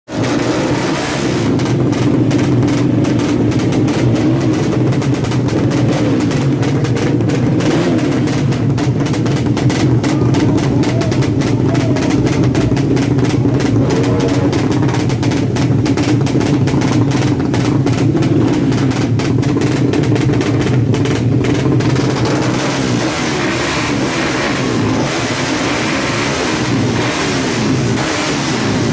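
Tuned FU 200cc motorcycle engine running steadily with a dense exhaust pulse. In the last several seconds the pitch rises and falls as it is revved.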